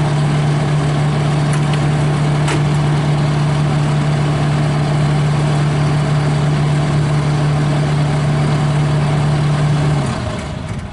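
Kubota SVL75-2 compact track loader's diesel engine running smoothly and steadily, then shut off about ten seconds in, its hum dropping in pitch and dying away.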